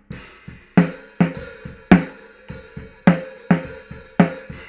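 Recorded snare drum track played back through a low-boosting EQ, before compression: a steady groove of sharp snare hits, each with a short ringing tone. Softer strikes from the rest of the drum kit sound between them.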